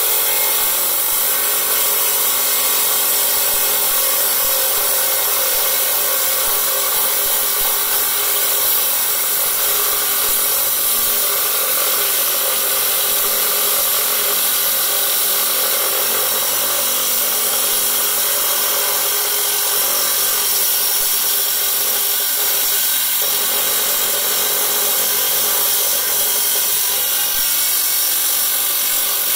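Electric stone saw running with its wet blade cutting through a rough stone pressed against it by hand: a steady, loud high-pitched hiss over the motor's constant hum.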